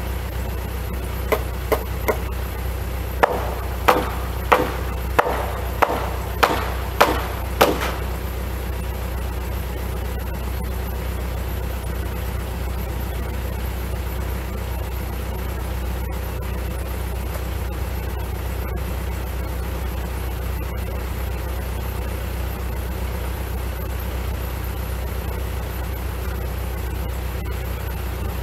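About eleven hammer blows on a timber-frame beam, driving it into its joint: three lighter taps, then eight heavier blows at about one and a half a second, then they stop. A tractor's diesel engine idles steadily underneath.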